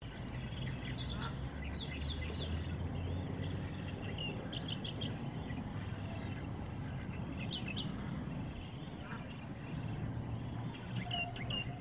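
Outdoor lakeside ambience: a steady low rumble of wind on the phone's microphone, with birds calling in short high chirps, several times in quick runs of three or four notes.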